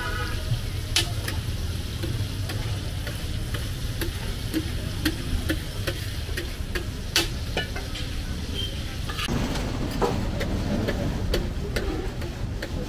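Mutton liver (kaleji) frying on a hot tawa as it is stirred, with irregular sharp clicks of metal on the pan over a steady low rumble.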